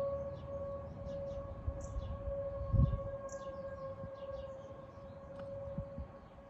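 Outdoor tornado warning siren sounding a steady tone for a tornado drill, growing fainter toward the end. Under it runs a low rumble, with a low thump about three seconds in and short high chirps throughout.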